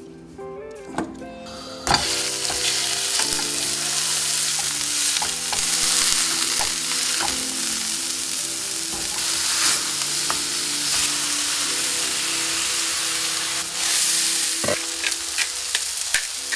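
Ground beef patties sizzling in a non-stick frying pan: a steady, dense sizzle that starts suddenly about two seconds in.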